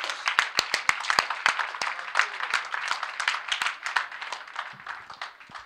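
Small audience applauding with hand claps, dying away near the end.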